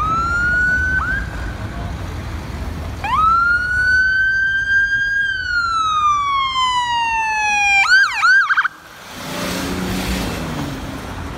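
Dublin Fire Brigade ambulance siren on a wail, climbing and then falling slowly in pitch. Near the end it breaks into a few fast up-and-down warbles and cuts off. The ambulance's engine and road noise then follow as it passes close by.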